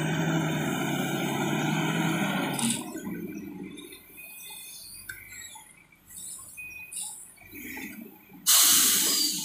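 Komatsu wheel loader's diesel engine running hard for about three seconds, then easing off as the bucket is raised and tipped over a haul truck. Near the end a sudden loud rushing hiss sets in and is the loudest sound.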